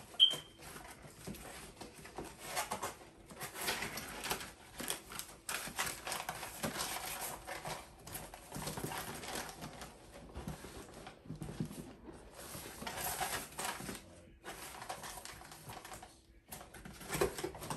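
Irregular rustling, scraping and clicking of packaging and small plastic parts being handled, with one sharp click just after the start.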